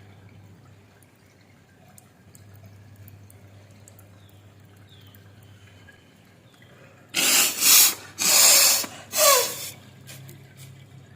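Jal neti: lukewarm water from a neti pot trickling and dripping faintly as it runs through the nose. About seven seconds in come three loud, rushing bursts of breath blown hard out through the nose, clearing the water.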